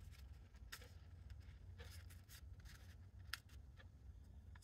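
Near silence: a faint low hum with a few brief, soft rustles and taps of paper scraps being handled, the clearest about three seconds in.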